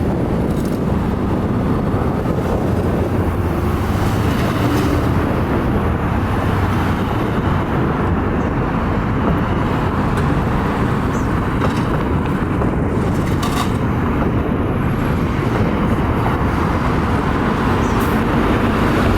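Steady road traffic noise, a dense low rumble with no siren.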